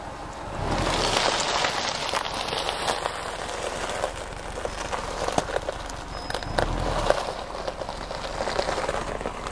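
Tyres crunching and popping over loose gravel and rock as the Subaru Forester rolls slowly forward. The crunching starts about half a second in and swells again around seven seconds.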